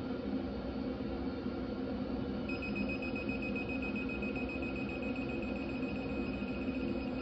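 Digital torque wrench beeping as a cam plate bolt reaches the set torque of 120: a high, steady electronic beep starts about two and a half seconds in and keeps sounding, over a steady low background hum.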